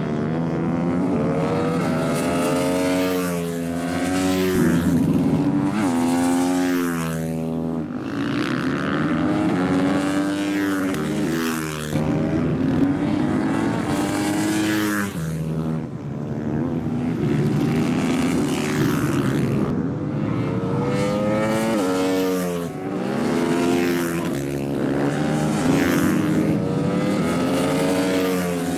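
Supermoto motorcycles racing through a corner, several engines overlapping. Each engine note drops as the rider brakes and shifts down, then climbs again as he accelerates away, over and over.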